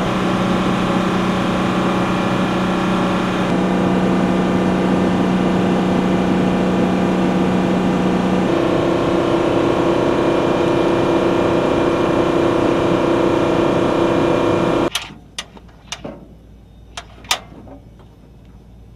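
Steady machine whine with several held tones from helicopter maintenance equipment. Its pitch steps twice, then it cuts off abruptly about 15 seconds in. A few sharp clicks and knocks follow.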